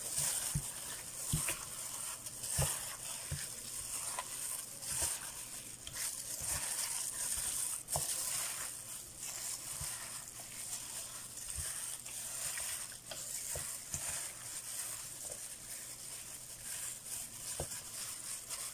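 Plastic-gloved hands mixing sliced pork in soy sauce marinade in a metal bowl: wet squishing of meat and gloves, with irregular soft knocks and clicks as the pieces hit the bowl.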